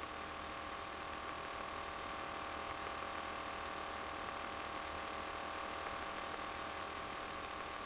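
RV-9A light aircraft's piston engine and propeller in cruise flight: a steady drone with a constant hum, unchanging throughout.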